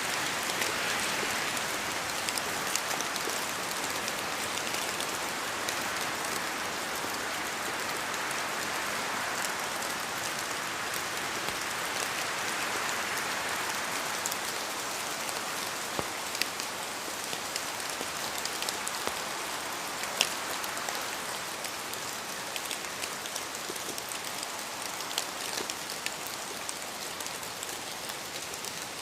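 Steady rain in a forest, a continuous hiss that swells and eases every few seconds, with scattered sharp ticks of individual drops falling from the trees.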